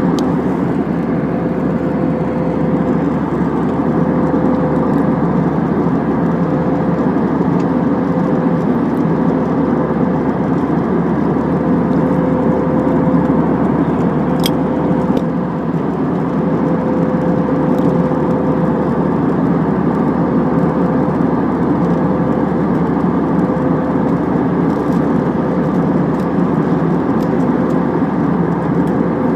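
Jet airliner cabin noise in cruise flight: a loud, even rush of engine and airflow noise with a steady mid-pitched tone running through it, heard from inside the cabin. A single faint tick comes about halfway through.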